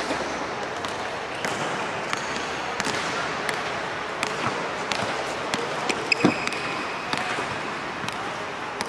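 Basketballs being dribbled and bouncing on court surfaces: irregular sharp knocks over a steady background hiss, with a cluster of louder knocks a little past the middle.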